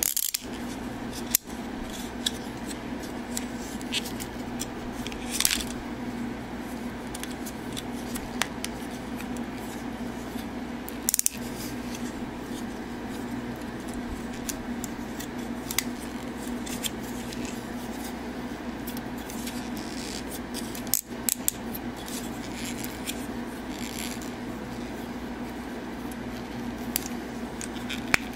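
Plastic clicks and snaps of a BeastBox-style transforming action figure as its joints and parts are handled and transformed, in irregular runs of small ticks with a few louder snaps scattered through, over a steady low hum.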